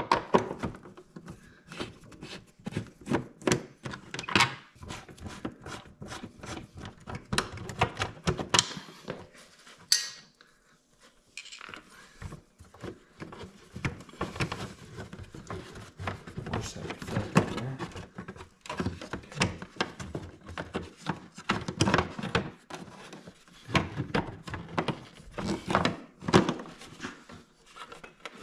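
Irregular clicks, knocks and rubbing of the Honda Gold Wing GL1500's plastic fairing covers and trim as a screwdriver backs out screws and the panels are pried and pulled loose, with one sharp snap about ten seconds in.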